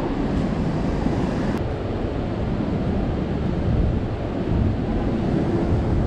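City street ambience: a steady rumble of traffic with wind buffeting the microphone.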